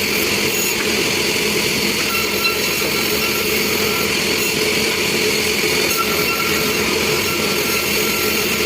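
Sawmill machinery running steadily, a loud, even mechanical noise with no pauses.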